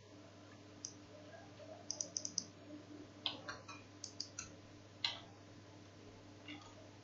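Faint, irregular clicking of computer keys, with a quick run of about five clicks around two seconds in and single clicks scattered through the rest.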